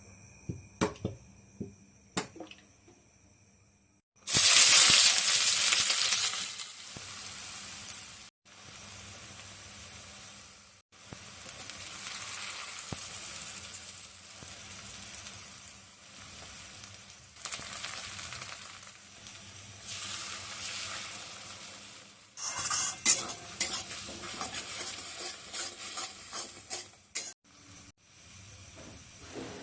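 Egg bhujiya frying in hot oil in a pan. A few light utensil clicks come first, then a loud sizzle starts suddenly about four seconds in and goes on as the eggs are stirred, with spatula scrapes and clinks against the pan near the end.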